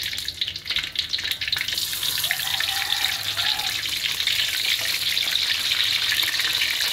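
Tempeh slices frying in hot oil in a wok, with more pieces being added. The crackling sizzle thickens into a steady, louder hiss about two seconds in.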